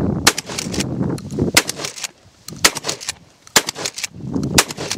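12-gauge pump-action shotgun fired rapidly, about five shots roughly a second apart, with the slide racked and a spent shell ejected between shots.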